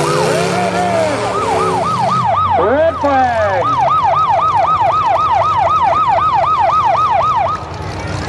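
A siren in a rapid yelp, its pitch sweeping up and down about four times a second, over engine rumble. It breaks off briefly about a second in and stops shortly before the end.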